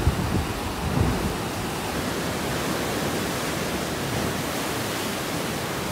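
Heavy surf washing through a narrow rock channel and sea cave: a steady, rushing hiss of breaking and foaming water. Low gusts of wind buffet the microphone in the first second or so.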